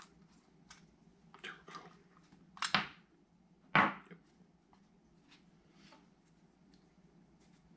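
Small clicks and ticks of a screwdriver and the parts of a spinning reel being handled. Near the middle come two loud, sharp knocks about a second apart, as the screwdriver is set down on the countertop.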